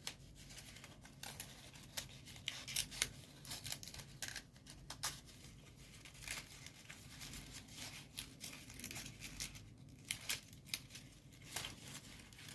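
Folded paper origami units rustling and crinkling as they are handled and pushed into place in a modular kusudama: faint, irregular paper crackles and small taps.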